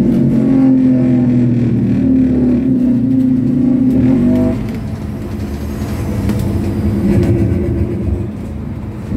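Scania OmniCity bus engine and drivetrain heard from inside the passenger saloon, a steady humming drone that drops off about four and a half seconds in as the bus slows, leaving a quieter, rougher running sound.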